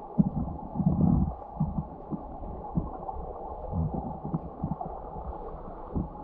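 Muffled low rumble of river water with irregular soft thumps, as heard through a camera held underwater or in a waterproof housing.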